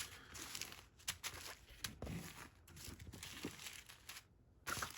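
Small plastic bags of diamond-painting drills crinkling and rustling as they are handled and gathered, with a few small clicks and a brief pause near the end.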